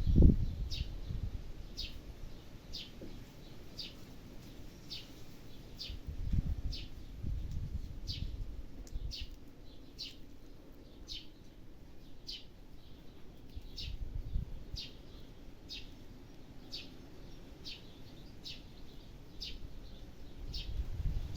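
A bird chirping over and over, short high chirps about once a second, with occasional low rumbles.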